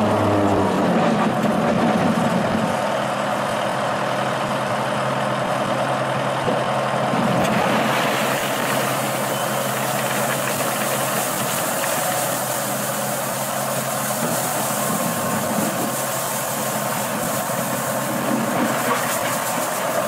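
Diesel engine of a Dresser wheel loader running steadily. From about seven seconds in, gravel pours from the raised bucket into a utility trailer with a continuous rattling hiss over the engine.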